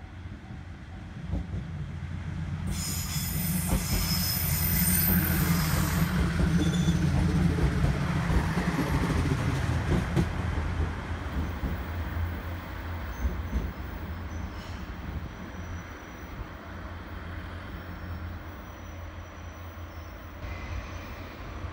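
A JR East KiHa 110-series diesel railcar draws up and passes at low speed with a steady low engine rumble that swells as it nears and then fades. About three seconds in, a high-pitched squeal from its wheels and running gear lasts roughly three seconds.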